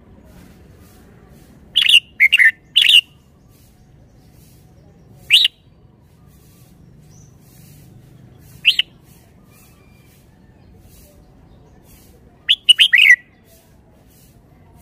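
Red-whiskered bulbul singing short, loud, clear phrases: a quick run of three notes about two seconds in, single notes around five and nine seconds, and a fast cluster of several notes near the end.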